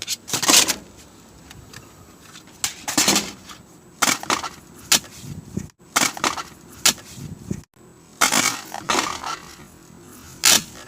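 Rummaging through a pile of CD cases and discs: a series of short clattering, rustling handling noises at irregular intervals.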